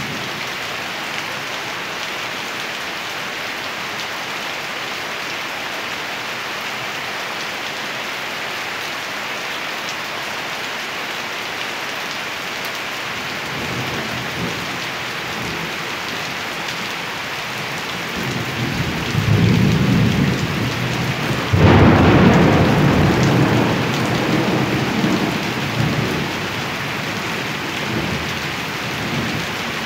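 Steady rain falling, with thunder: a low rumble builds about halfway through, a sharp thunderclap comes a little after two-thirds of the way in, and a long rolling rumble follows and fades.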